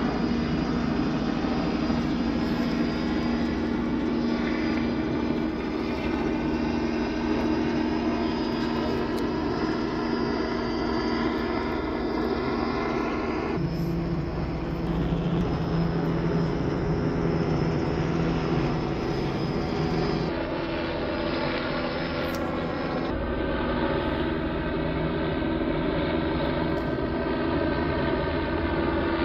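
Police helicopter flying overhead, its rotor and engine making a steady drone with a low pitched hum. The sound changes abruptly a few times where different clips are joined.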